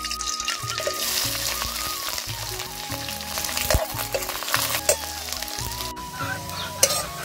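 Sliced onions and dried red chilies sizzling in hot oil in a black iron wok, with a steel ladle stirring and scraping through them and a few sharp clinks of metal on the pan.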